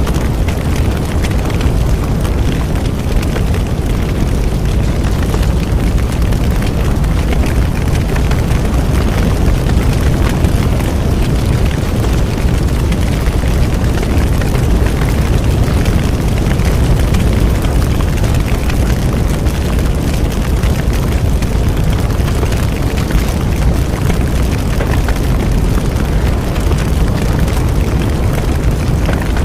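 Bonfire burning steadily: a deep, even rush of flames with constant fine crackling and small pops.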